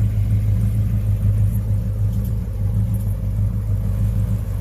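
A 1972 Chevrolet donk's engine idling with a loud, steady, deep rumble.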